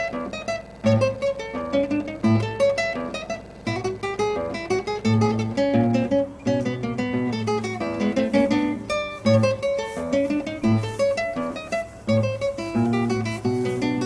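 Background music: acoustic guitar playing quick plucked and strummed notes over a steady bass beat.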